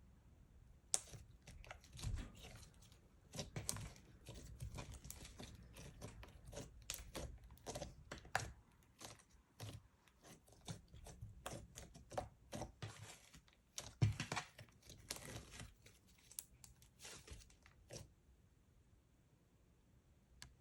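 Slime being squished, stretched and folded by hand, with many irregular crackling pops and clicks that thin out near the end.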